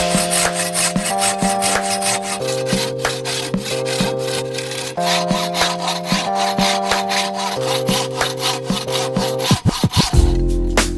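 Hand saw cutting through wood in quick, steady strokes, heard over background music with a repeating chord progression.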